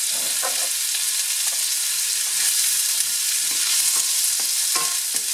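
Diced onion sizzling in hot oil and rendered ham fat in a stainless steel sauté pan, with a steady hiss. A wooden spatula stirs through the onion, scraping lightly against the pan.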